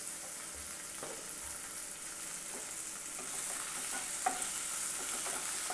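Onion, capsicum and green chilli frying in hot oil over a high gas flame: a steady sizzle, with a spatula clicking against the pan now and then as it stirs. The sizzle grows a little louder about three seconds in.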